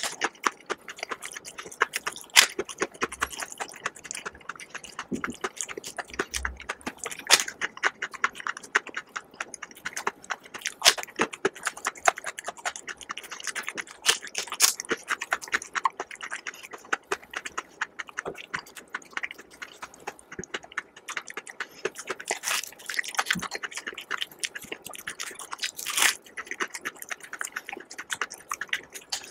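Close-miked eating: a person biting and chewing crisp food, a dense, uneven run of sharp crunches and wet mouth clicks.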